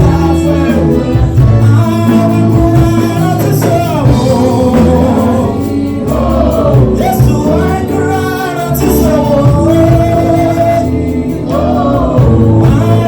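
Gospel music: voices singing together over a steady bass accompaniment.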